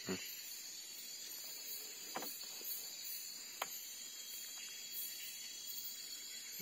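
Quiet night ambience: a steady high-pitched hiss, with a few faint clicks and taps from hands unhooking a freshly caught giant freshwater prawn from the line.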